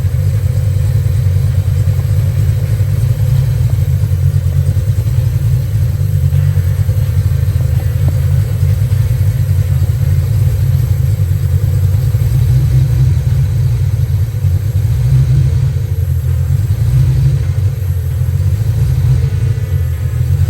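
Ford Fox-body Mustang engine running steadily with a loud, low exhaust rumble, being run to check for a misfire after a TFI module swap.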